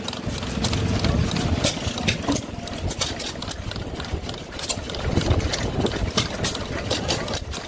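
1927 Stover single-cylinder hit-and-miss gas engine running: a rapid clicking with heavier low pulses about a second in and again around five seconds.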